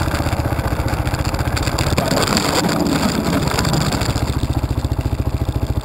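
Kawasaki KLR 650 single-cylinder engine running as the bike crosses ice at about 20 mph. About two seconds in the bike goes down, and a rough scraping rush covers the engine for a couple of seconds as it slides on its side. The engine keeps running afterwards.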